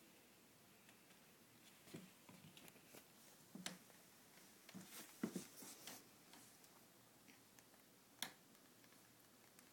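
Faint handling noise: scattered soft clicks and rustles over quiet room hiss, the loudest cluster about five seconds in and a single sharp click a little after eight seconds.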